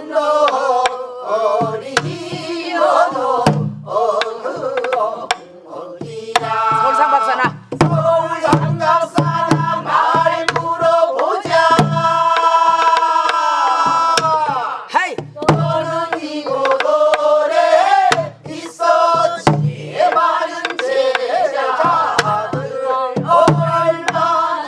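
A woman's voice leading a group singing a southern Korean folk song (Namdo minyo) in sliding, held phrases, one long note falling away about halfway through. Buk barrel drums keep the rhythm under it with low thumps on the drumhead and sharp wooden clicks of stick on the frame.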